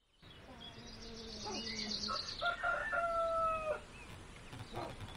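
A rooster crowing once about two and a half seconds in: a cock-a-doodle-doo of several short notes ending on a long, slightly falling held note.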